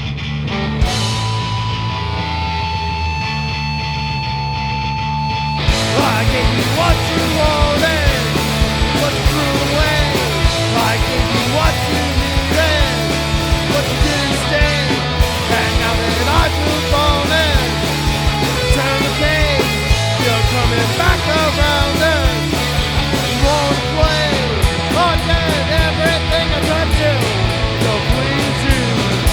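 Rock band playing an instrumental intro. Bass and guitar play held notes at first; about six seconds in, the drums and full band come in and keep going without vocals.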